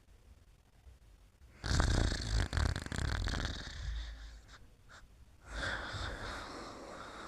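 Snoring in sleep: after a quiet start come two long snoring breaths. The first, starting about a second and a half in, is the louder and has a fluttering rattle; the second begins a little after five seconds in.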